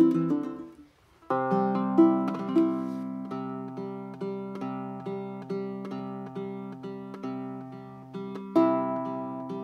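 Baritone ukulele with a curly Port Orford cedar top and grafted walnut back and sides, played fingerstyle in a slow, gentle melody of single plucked notes about twice a second, each left to ring. In the first second an earlier passage dies away, leaving a brief gap before the picking starts.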